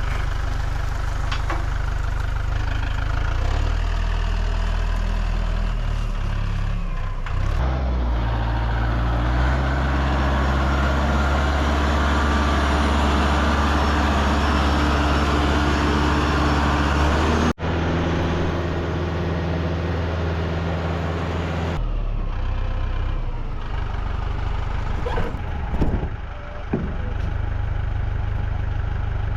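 An engine running at a steady speed that shifts a few times, with a brief sudden break about two-thirds of the way in.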